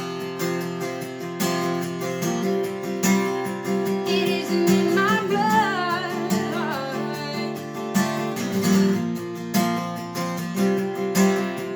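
Acoustic guitar strummed in a steady chord pattern between sung lines. A short wordless vocal run comes about halfway through.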